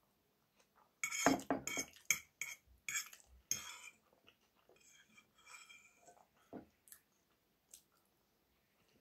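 Metal fork clinking and scraping against a frying pan while food is cut and picked up: a quick run of sharp clinks from about a second in until about four seconds in, then only a few faint ones.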